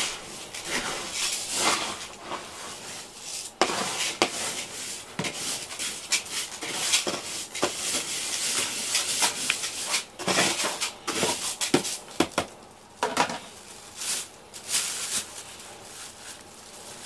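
Small rubber grooming brush being stroked through a cat's fur, with a brushing rub about once a second at an uneven pace. The strokes turn fainter near the end.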